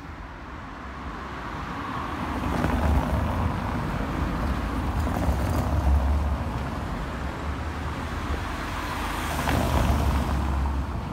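Vehicles driving past close by on a stone-sett street, a small white van and then a red car, their engines and tyres making a low rumble that swells as each one passes and fades near the end.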